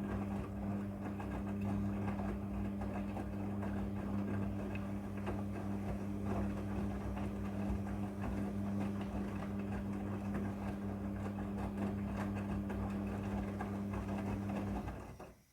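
A Midea front-loading washing machine running with a steady motor hum and light clicking and rattling over it, stopping suddenly near the end.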